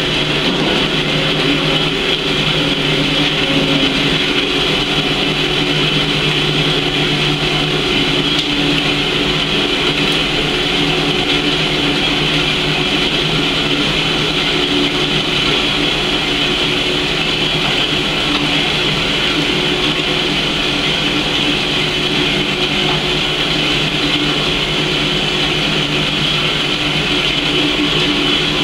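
Horizontal metal-cutting band saw running steadily, its blade working through 3-inch 1018 steel round stock; a steady hum with a high whine over it.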